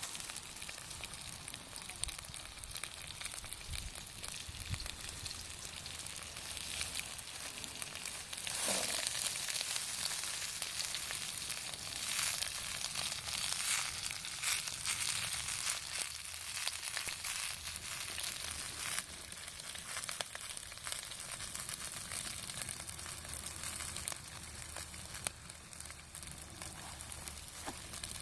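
Food sizzling in a Peking-style wok over a campfire: a steady frying hiss with scattered sharp crackles, swelling louder for a stretch in the middle.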